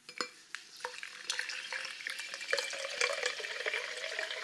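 Sparkling water poured from a plastic bottle into a glass and fizzing, with the pouring tone rising slowly as the glass fills. A few sharp clicks near the start.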